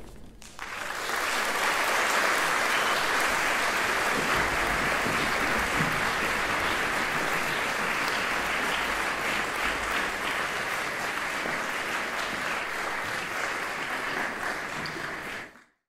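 Audience applauding, a dense, steady clapping that starts about half a second in and cuts off abruptly near the end.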